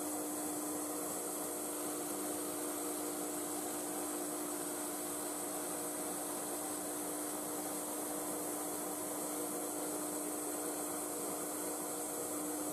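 Drill press running and boring into a wooden block, with the steady hum of its motor, while a dust collection vacuum hose beside the bit sucks hard, adding an even high hiss.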